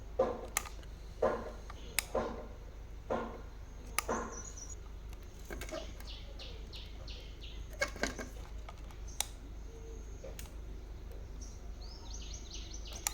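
Repeated sharp knocks and taps, most of them in the first few seconds. A bird chirps in quick runs of short high notes about halfway through and again near the end.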